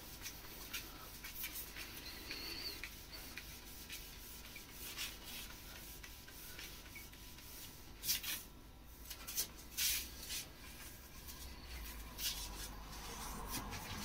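Rubbing and wiping over glazed kitchen wall tiles in a run of uneven scrubbing strokes, with a few louder swipes about eight and ten seconds in.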